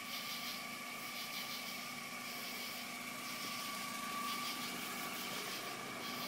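1993 Toyota Corolla idling steadily, with a constant high whine running over the engine.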